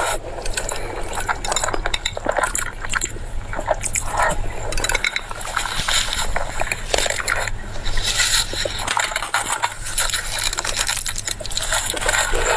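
Close-up eating sounds: wet chewing and mouth noises with many small quick clicks throughout.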